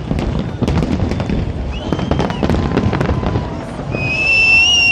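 Fireworks going off: a rapid run of sharp cracks and pops. About four seconds in, a steady high whistle begins and holds.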